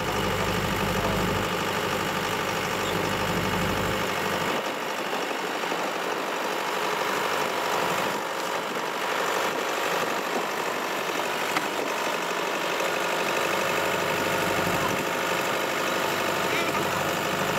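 Diesel engine of a rice combine harvester running steadily.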